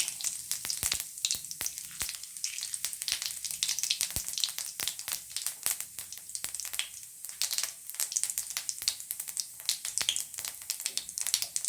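Cumin seeds sizzling in hot cooking oil, with a steady hiss and many small sharp pops. The oil is hot enough to temper whole spices.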